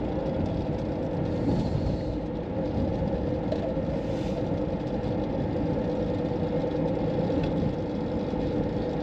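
Renault Master camper van driving at a steady speed: the engine's drone and road noise, heard from inside the cab, with a steady hum and no change in pace.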